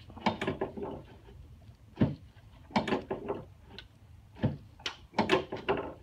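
Drop section of a chiropractic drop table falling under the chiropractor's thrusts on the lower back, giving several sharp knocks about a second apart. Each knock is the table piece giving way as a lumbar drop adjustment is delivered.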